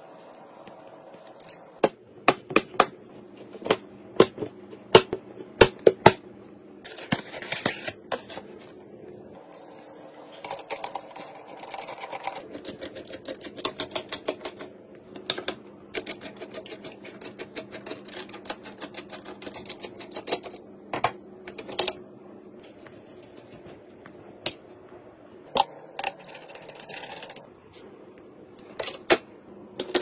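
Sharp plastic and metal clicks and clacks of PC parts being handled: RAM modules knocked against each other and set down, then small screws driven into a motherboard's heatsink covers. A faint steady hum and scraping run through the middle, and the clicks come thickest at the start and again near the end.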